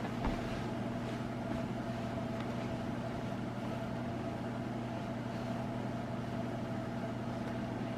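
Steady hum of an electric heater running, with a faint higher whine over it and a soft knock just after the start.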